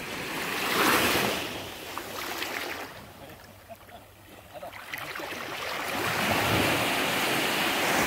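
Small sea waves lapping and washing up onto the beach. One swell comes about a second in, then a quieter lull, then a longer wash builds from about halfway.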